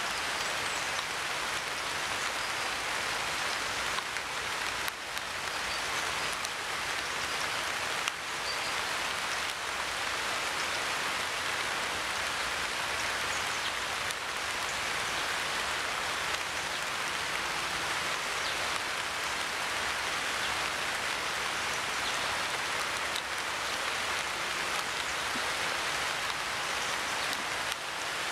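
A steady, even hiss with no buzzing and no distinct events.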